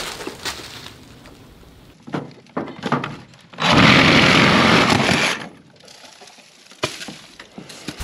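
Reciprocating saw with a metal-cutting blade runs in one steady burst of under two seconds, cutting through a heavy gutter nail up under the barn eave. A few scattered knocks and clatters come before and after it.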